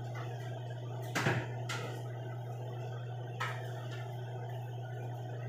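Kitchen work at the counter: a sharp knock a little over a second in and two lighter knocks later, over a steady low hum.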